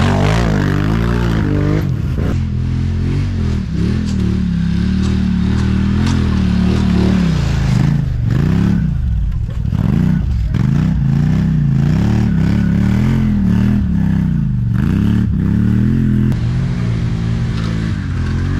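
ATV engine running off-road under constantly changing throttle, its pitch rising and falling again and again and dropping away sharply for a moment around the middle before picking up. Some clattering rides along with it.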